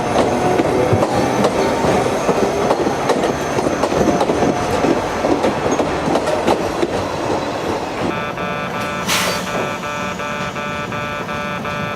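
Yokkaichi Asunarou Railway 260 series narrow-gauge electric train pulling out and running, its wheels clicking over the rail joints. Music comes in about eight seconds in and carries on over the fading train noise.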